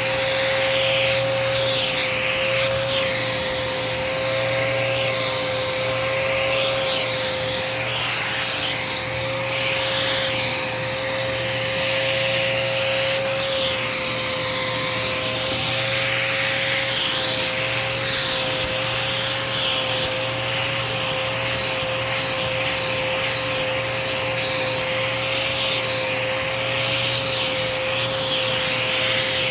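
Dirt Devil Power Max vacuum cleaner running continuously with a steady motor whine. Its crevice tool rubs across the couch cushion fabric, and the suction hiss keeps shifting as the tool moves.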